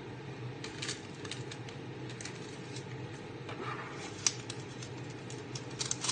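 Crinkling and small clicks of a foil-wrapped stock cube packet being opened and items handled in a kitchen cupboard, with one sharp click about four seconds in, over a steady low hum.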